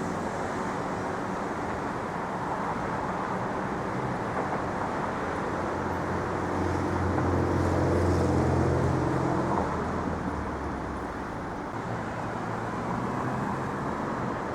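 Street traffic: a steady hum of passing cars, with one vehicle's engine drawing near and going away, loudest about eight seconds in.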